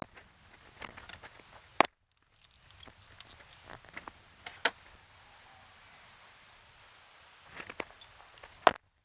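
A handful of sharp clicks and light knocks, scattered and a few seconds apart, over faint background; the sound drops out completely twice, about two seconds in and near the end.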